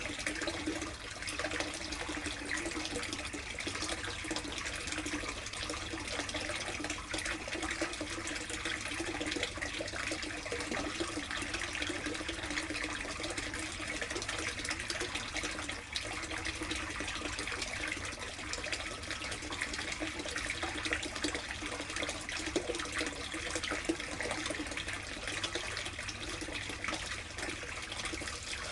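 Water running and splashing steadily into a plastic koi tub, an unbroken flow with fine splashing over it.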